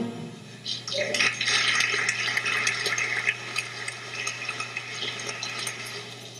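Audience applauding after a musical number, swelling about a second in and tapering off toward the end, over a steady low electrical hum.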